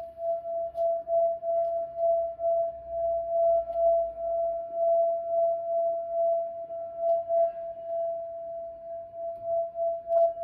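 Tibetan singing bowl singing one steady, held tone with a fainter overtone above it, its loudness swelling and fading about twice a second.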